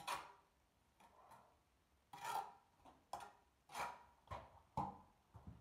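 Bricklayer's steel trowel scooping wet mortar from a wheelbarrow and scraping it onto a brick, buttering the brick. It comes as a run of short, faint scrapes, roughly one every half second to a second.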